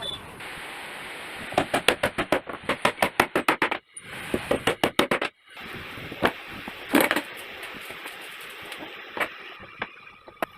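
Rapid runs of sharp knocks, several a second, over a steady hiss, broken off by sudden cuts.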